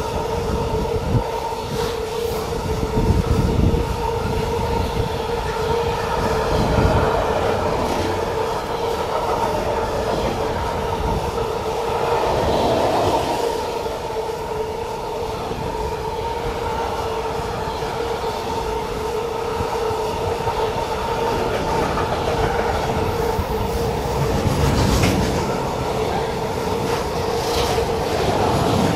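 Loaded container flat wagons of an intermodal freight train rolling past at close range: a steady rumble of wheels on rail with a constant whine throughout, and heavier thumps every few seconds as the wheelsets pass.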